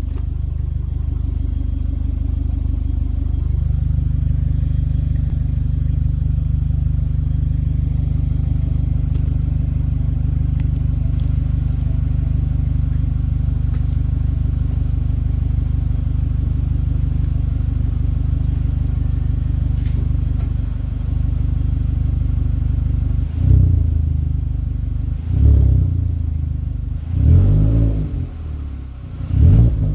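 Volkswagen Polo Vivo's exhaust with the engine idling steadily, then revved in four short blips about two seconds apart near the end, the pitch rising and falling with each.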